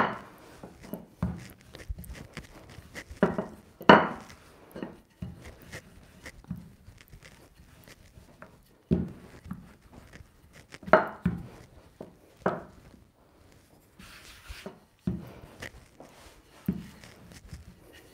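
Wooden rolling pin rolling out shortcrust pastry dough on a floured worktop: irregular knocks and thuds as the pin is set down, gripped and pressed, with softer rolling and handling sounds between.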